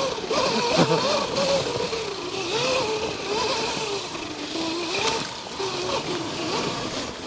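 Sur-Ron electric dirt bike's motor whining as it rides, its pitch wavering up and down with the throttle, over a steady hiss of wind and tyres through leaf litter.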